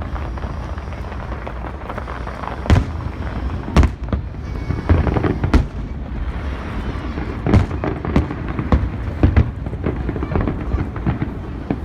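Fireworks display: shells bursting in sharp bangs at irregular intervals, about ten in a dozen seconds, over a continuous background of noise.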